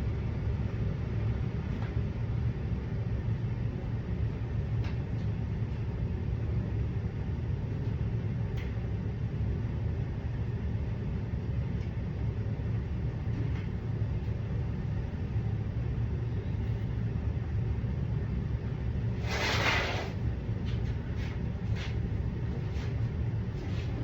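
Clothes dryer running with a steady low rumble. About nineteen seconds in there is a short burst of rustling noise, followed by a few sharp clicks.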